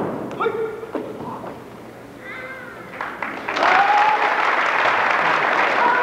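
A few voices call out, then about three and a half seconds in an audience breaks into sustained applause, with a cheer rising over the clapping.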